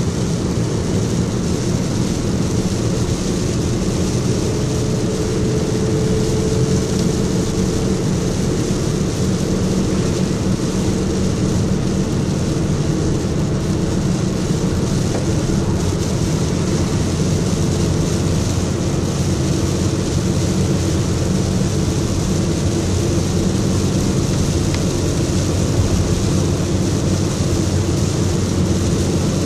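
Interior noise of a vehicle driving on wet pavement in rain: a steady engine and drivetrain drone with a continuous hiss of tyres on the wet road.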